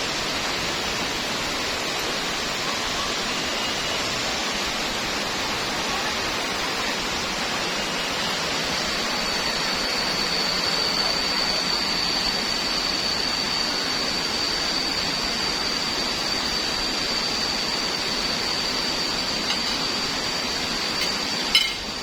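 Waterfall rushing as a steady, even hiss. From about nine seconds in, a thin, steady high-pitched whine sits above it, and a single sharp click sounds near the end.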